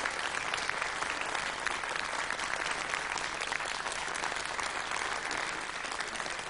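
Audience applause: a seated theatre crowd clapping steadily, easing off slightly near the end.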